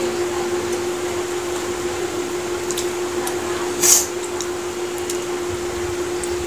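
Steady electrical machine hum of a fan-type appliance running, with a few faint clicks and one short hiss about four seconds in.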